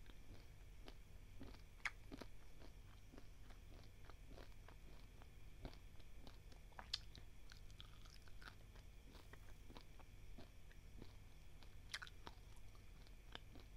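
Dry, uncooked basmati rice grains being chewed. There is a steady run of small, faint crunches and clicks, with a few sharper cracks among them.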